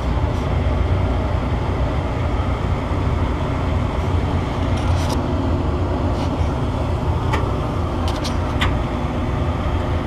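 Boiler firing on a call for heat: a steady burner rumble and hum, running quietly with no rattle, which is the sign that this boiler is not the source of the noise being traced. A few short ticks come in the second half.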